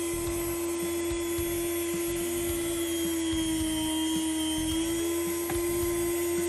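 Electric deli meat slicer running with a steady motor hum and blade whir while a cooked beef roast is pushed through the blade. The hum's pitch sags slightly about halfway through, with a few faint ticks.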